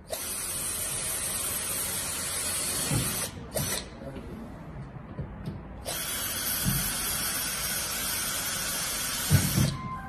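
Cordless drill running at full speed through an aluminium frame profile, drilling screw holes: a run of about three seconds, a brief burst, then a run of about four seconds. A few knocks come between, the loudest near the end.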